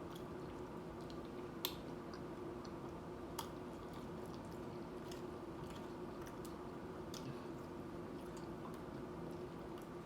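Close-miked chewing of nachos: faint wet mouth clicks and squishes with two sharper crunches a couple of seconds apart near the start, over a steady low hum.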